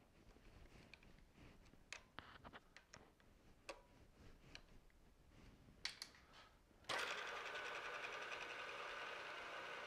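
Small metal clicks and taps as a drill bit is fitted in the milling machine's drill chuck, then about seven seconds in the mill's spindle motor switches on and runs steadily.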